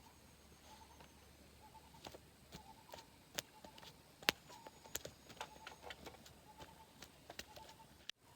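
A bird calling with short, repeated notes at one pitch, about once a second, along with irregular sharp clicks and taps that start about two seconds in; one click near the middle is the loudest.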